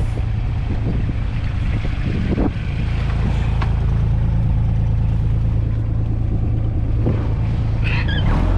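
Motor vehicle engine running steadily while driving along a rough track, with a few knocks and rattles from the bumps. A short voice cuts in near the end.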